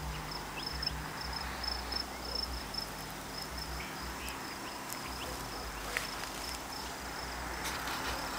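Crickets chirping in a steady run of short, high chirps, several a second, over a low rumble that comes and goes.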